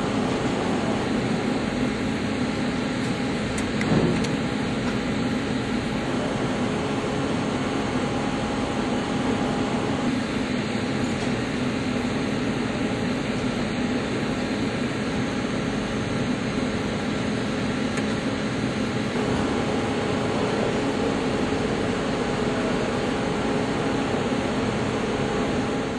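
CNC lathe running as a grooving insert cuts a 42CrMo4 alloy steel workpiece: a steady machine hum and cutting hiss with a few held tones, and one short louder knock about four seconds in.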